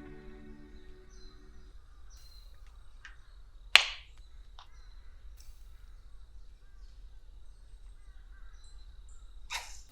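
Guitar music stops about two seconds in. Faint bird calls follow against a low background, with one loud sharp click about four seconds in and a softer rustle near the end.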